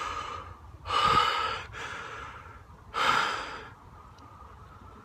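A man breathing hard and out of breath: two loud, heavy breaths about two seconds apart.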